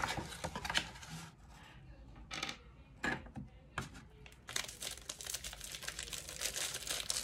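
Cardboard box insert being handled and flexed: rustling, scraping and small clicks, sparse and quieter in the middle and denser over the last few seconds.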